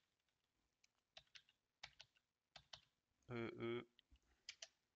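Typing on a computer keyboard: scattered single keystrokes, a few each second. A little past three seconds in, a short two-syllable murmur of voice.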